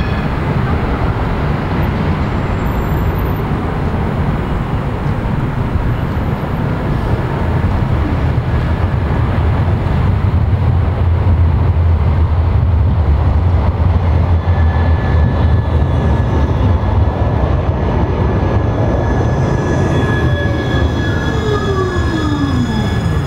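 Articulated low-floor electric tram running along street track toward and past the listener: a low rumble of wheels on rail that swells through the middle, a steady high whine from about two-thirds of the way through, and the motor whine falling in pitch near the end as the tram slows.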